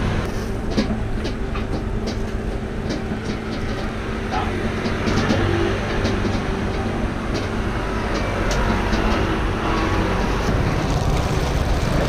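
Steady low rumble of street traffic and motor vehicles, with scattered light clicks and clatter.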